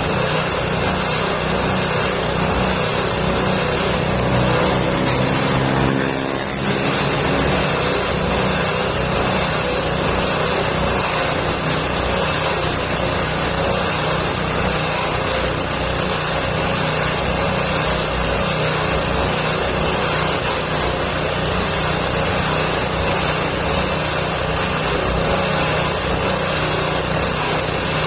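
Forage chopper machine, driven by its motor, running steadily as it shreds indigofera and gamal branches into goat feed, with a brief dip about six seconds in.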